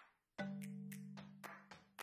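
Background music: a short gap, then a held low note about half a second in with a beat of about four strikes a second over it.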